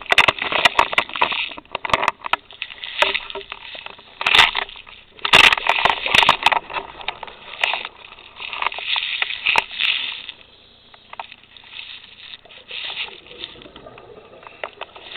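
Underwater bubbling and knocking heard through a camera's waterproof housing: irregular bursts of rushing bubbles with crackly clicks, quieter for a couple of seconds past the middle.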